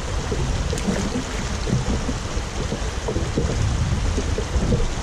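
Steady rushing noise of river water flowing over a shallow rocky riffle, with wind buffeting the microphone and adding a low rumble.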